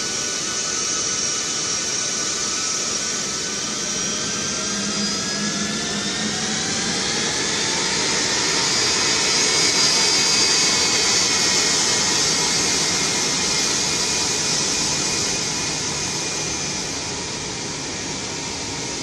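Boeing C-17 Globemaster III's four Pratt & Whitney F117 turbofans running at taxi power, a steady jet roar with high turbine whines. The whines glide down in pitch as the aircraft turns past, and the roar is loudest about halfway through, easing off near the end.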